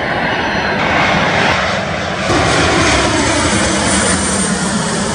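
Jet airliner engines on approach to land, a loud steady roar with a faint high whine. The sound shifts a little over two seconds in as a second airliner passes.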